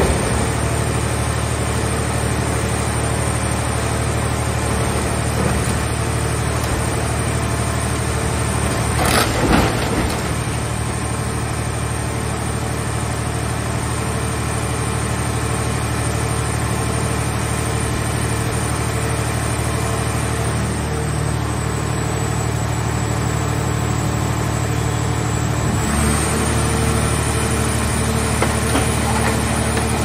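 Car scrap baler's hydraulic power unit running with a steady drone while its grab presses down a car shell. About nine seconds in comes a loud crunch of the car body giving way, and near the end the machine's note changes as the press lid begins to close.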